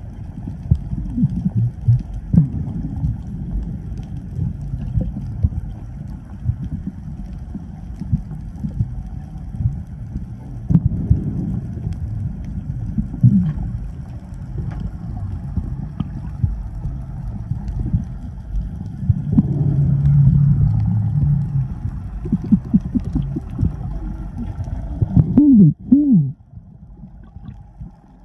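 Water moving around a camera held underwater: a low, muffled rumbling slosh that swells and fades, with a few gurgling bubble sounds about twenty-five seconds in, after which it suddenly goes quieter.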